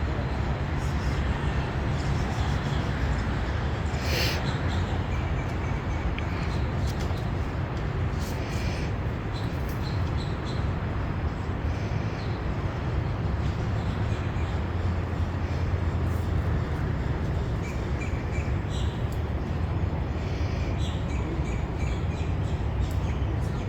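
Steady outdoor background rumble and hiss, with a few faint bird chirps now and then and a single click about four seconds in.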